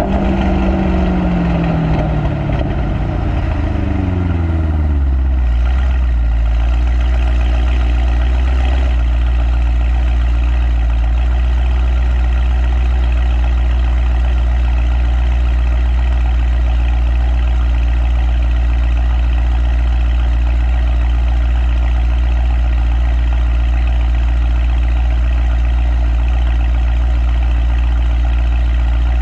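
Mercedes-AMG M177 4.0-litre twin-turbo V8, with upgraded downpipes and the exhaust flaps fully open, dropping from a rev back down to idle over the first few seconds, then idling steadily with a low, even exhaust note.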